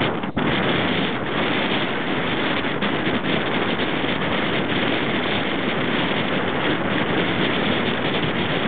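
Steady wind buffeting the microphone, dipping briefly just after the start.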